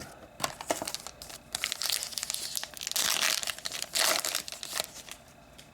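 Plastic wrapper of an SP Authentic hockey card pack crinkling and tearing as the pack is ripped open, a run of rustling crackles that dies down near the end.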